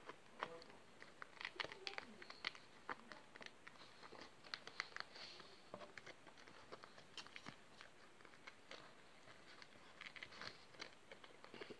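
Faint, scattered crackles and small creaks of a soft foam puzzle sheet being bent and squeezed by hand as a piece is pushed out of it.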